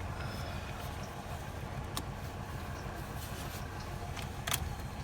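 Lada Priora petrol engine idling steadily just after a cold start, with no loud hydraulic-lifter clatter; diesel flushing has apparently freed the coked-up lifters. Two light clicks, about two seconds in and near the end.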